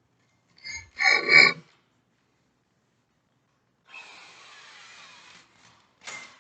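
Electric power drill run in short bursts: a loud whining burst about a second in, a quieter, longer run from about four seconds in, and a brief burst near the end.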